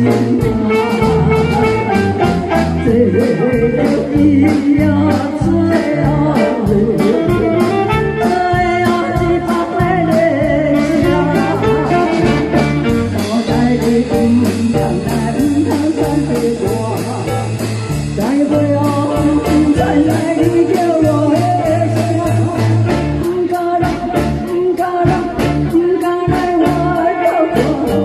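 A woman singing a Japanese song into a microphone, backed by a live band with guitar prominent, on a steady beat.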